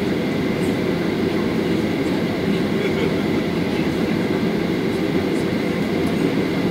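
Steady cabin noise inside a Boeing 737-800: the even hum of its engines and air flow, with a faint high whine above it.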